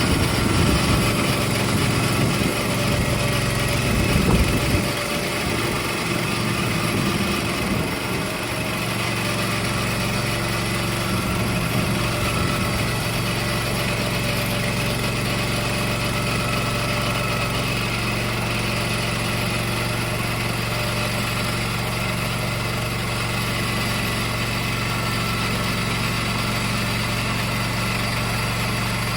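Engine of a TMG industrial sawmill running: uneven and a little louder for the first several seconds, then a steady note for the rest.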